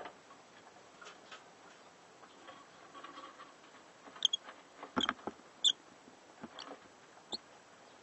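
Lovebirds in a nest box with newly hatched chicks: soft rustling and scratching in wood-shaving bedding, then about five short, high squeaks in the second half, with a few soft knocks among them.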